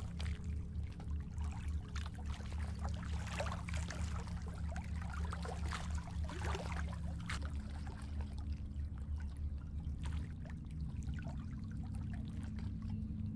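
Small waves lapping and splashing, in irregular little splashes, over a low steady drone.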